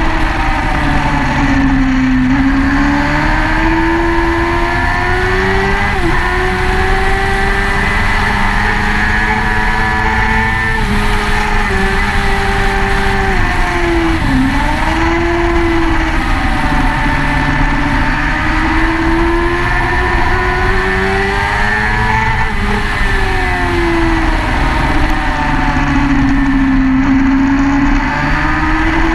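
Sport motorcycle engine heard onboard at track speed, its pitch climbing and dropping as it accelerates, changes gear and slows for corners, over steady wind rush.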